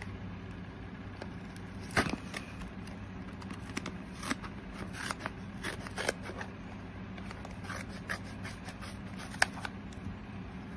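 Scissors snipping and scraping through a chocolate Nesquik drink carton as it is cut open, in scattered irregular cuts, with a sharp click about two seconds in and another near the end.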